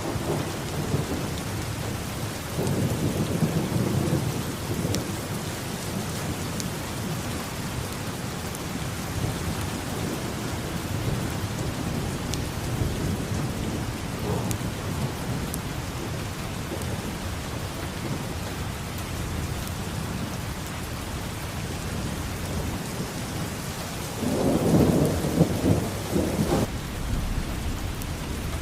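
Steady rain falling in a thunderstorm, with low rolls of thunder: one about three seconds in and a louder one near the end.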